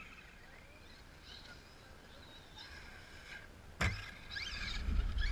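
Faint bird chirps, then about four seconds in a single sharp thud as a radio-control truck lands hard on the grass off a jump.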